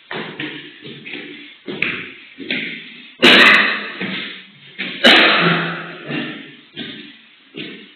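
A person coughing over and over: a run of harsh coughs, about ten in all, with the two loudest, fullest coughs a few seconds in and near the middle.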